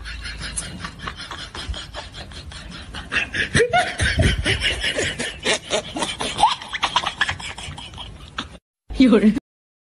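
Steel shovels scraping and scooping through a wet concrete mix of cement and gravel on a concrete slab, in quick repeated strokes, as it is mixed by hand. People's voices and laughter join in from about three and a half seconds in, and the sound cuts off near the end.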